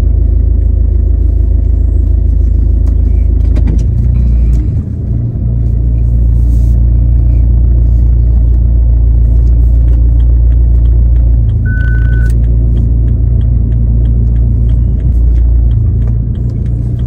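Car cabin noise while driving: a loud, steady low rumble of engine and road. A single short beep sounds about twelve seconds in.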